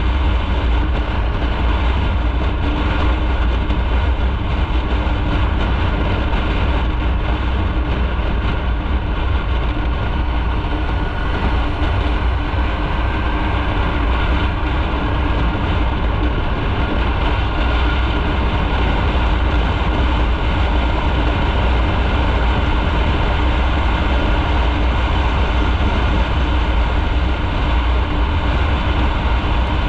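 Motorcycle engine running steadily while being ridden, over a heavy, even low rumble.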